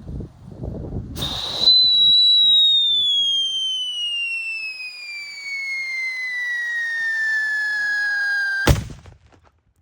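Whistling firecracker (Pb-016 'Scream'): a short hiss as it lights about a second in, then a loud, piercing whistle that falls slowly and steadily in pitch for about seven seconds. It ends in one sharp bang.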